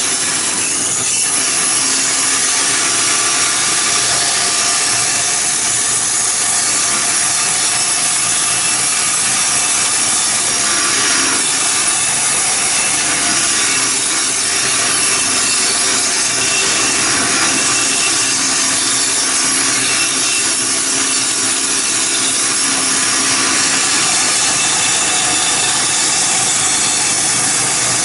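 Band saw cutting steadily through a piece of hardwood with a freshly hand-sharpened blade. The owner says the blade makes a bit of a funny noise from uneven sharpening.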